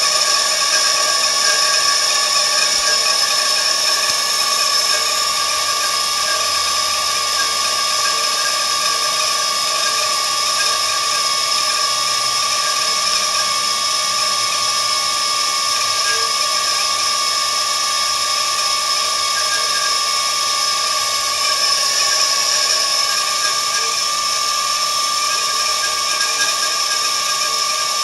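Bauer high-pressure air compressor running, a steady mechanical drone with a constant high whine and hiss.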